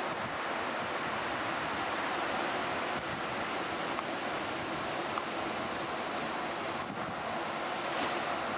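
Ocean surf breaking on a beach: a steady, unbroken wash of waves.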